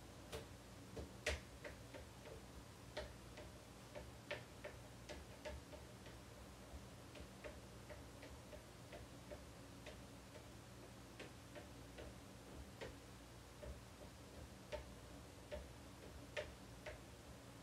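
Faint, irregular clicks and light taps of a cooking utensil on an electric pancake griddle, over a low steady hum.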